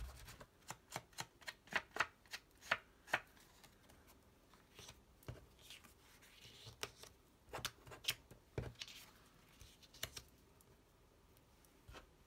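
Foam ink blending tool dabbed on a Distress Ink pad and worked over paper edges, making a run of soft quick taps, about three a second at first. Later come scattered taps and a few faint brushing sounds.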